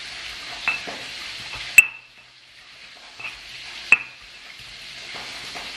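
Stone pestle pounding and grinding green chilies in a stone mortar: four sharp stone-on-stone knocks, the loudest about two seconds in. Under them, oil sizzles steadily in a frying pan on the stove, dropping out briefly after the loudest knock.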